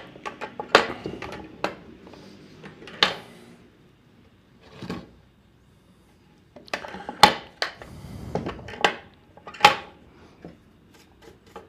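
Scattered metal clinks and knocks of a hand-made iron trunk handle moving on its mount on a wooden board, some strokes ringing briefly. There is a near-quiet pause around six seconds in.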